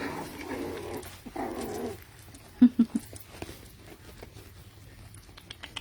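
Puppies whining and grunting, then three short, loud yips about two and a half seconds in, followed by faint clicks and scuffles.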